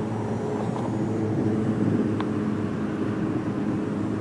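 Steady low machine hum, a motor or engine running at an even pitch.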